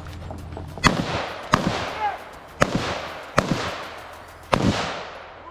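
Five rifle shots at uneven intervals of about a second, each loud crack followed by a fading echo.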